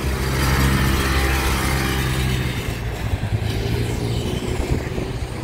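Engine of a lifeguard side-by-side beach buggy driving past close by, loudest in the first two or three seconds and then fading as it pulls away down the beach.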